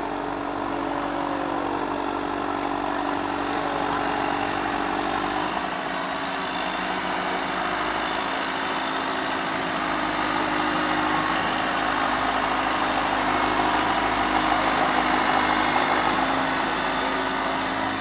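Harbor trash-skimmer boat under way, its engine running with water churning in its wake. A steady hum holds for the first five seconds or so, and the sound grows louder toward the end as the boat passes close by.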